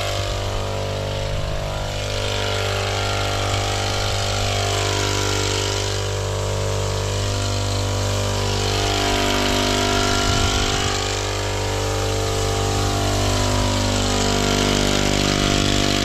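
Small engine of a motorized crop sprayer running steadily at one constant speed while insecticide is sprayed.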